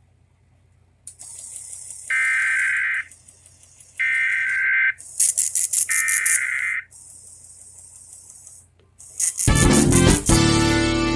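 NOAA Weather Radio SAME header data tones: three bursts of warbling digital tones, each about a second long and two seconds apart, over crackling radio hiss. Near the end a loud, harsh, distorted sound starts.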